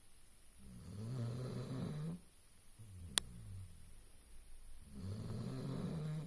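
Dog snoring in its sleep: two long, low snores about four seconds apart with a softer breath between them. A single sharp click cuts in about three seconds in.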